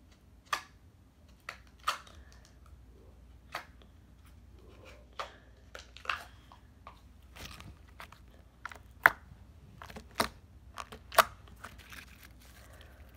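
Fingers poking a sticky, jiggly glitter slime, giving irregular short wet clicks and squishes, the loudest two in the second half.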